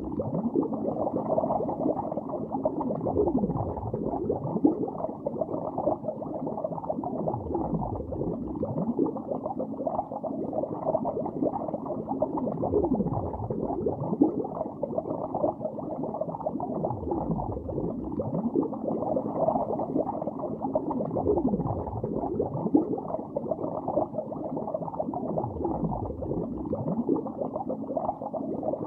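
Continuous underwater bubbling, dull and muffled, with a low gurgling pitch that falls and rises again every four or five seconds.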